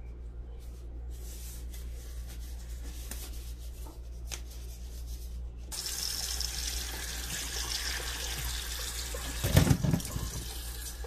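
Faint rustling of disposable gloves being pulled on over a low steady hum. About halfway in, the kitchen tap runs into the sink while cooking water is poured from a pot into a plastic colander. Near the end there is a loud thump as the boiled beets tumble out of the pot into the colander.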